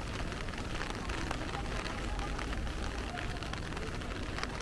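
Heavy rain drumming on an umbrella overhead, a steady patter of dense, sharp drop hits.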